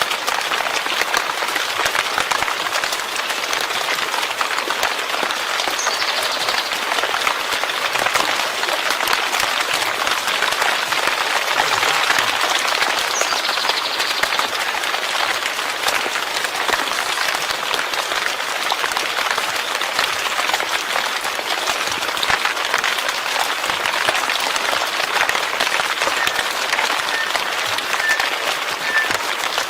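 Steady rain falling in a dense, even patter, with a few faint high chirps about six and thirteen seconds in.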